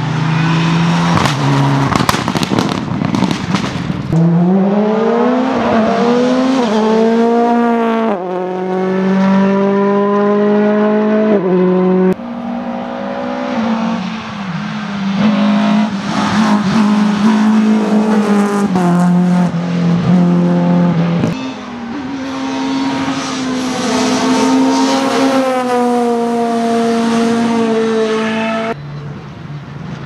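Rally cars driven flat out one after another. The first few seconds are a rapid string of sharp cracks and bangs. Then the engines rise in pitch through quick upshifts and hold at high revs.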